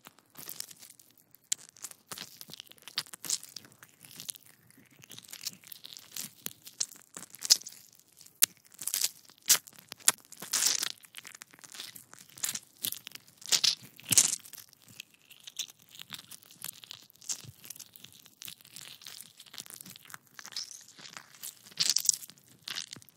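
Gore sound effect of intestines being squeezed: a dense, irregular run of wet crackles and small tearing pops, with a few louder peaks.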